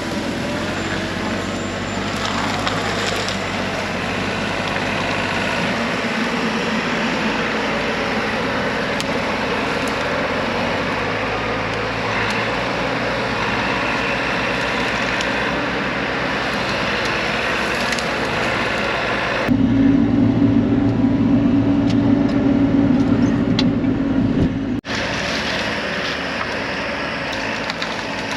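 A Bobcat E42 mini excavator's diesel engine runs steadily under load while it works. About two-thirds of the way in, the sound turns louder and duller for about five seconds, then breaks off sharply and returns to the earlier running sound.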